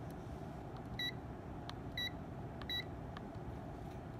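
KAIWEETS HT208D clamp meter giving three short, high electronic beeps as its buttons are pressed, about a second apart.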